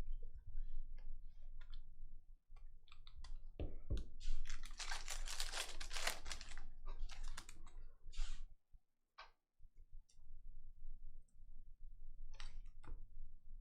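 Scattered clicks of typing on a computer keyboard, with a rustling stretch of about two seconds in the middle.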